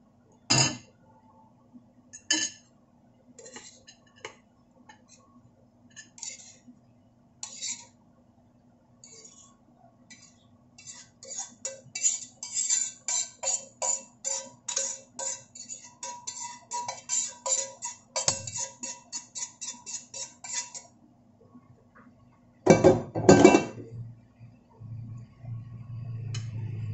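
A metal spoon scraping and clinking in a nonstick frying pan as fried tofu and pork is spooned out onto a plate. A few separate clinks come first, then a long run of quick scraping strokes, and two loud clatters follow a couple of seconds later.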